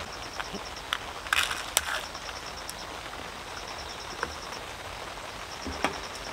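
Plastic yogurt cup and cereal topping crackling and rustling about a second in as it is handled, with a few light clicks, over a steady hiss of rain. A faint, rapid, high chirping comes and goes in short runs.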